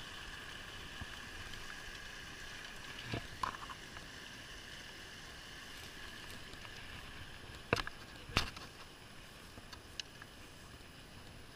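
Small brook rushing steadily over a riffle. A few sharp clicks come about three seconds in, and two louder sharp knocks follow near the eight-second mark.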